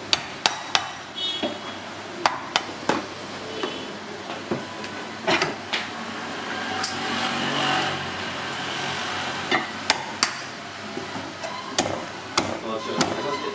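Meat cleaver chopping snake meat on a thick wooden chopping block: sharp knocks of the blade striking the block, irregularly spaced and coming in small clusters, with a few seconds of softer continuous noise in the middle.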